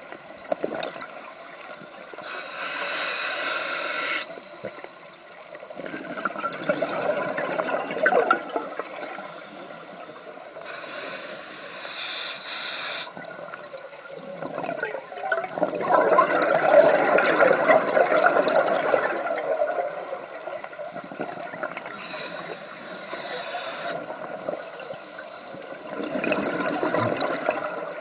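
Scuba diver breathing through a regulator underwater: three hissing inhalations about ten seconds apart, each followed by a longer gurgle of exhaled bubbles.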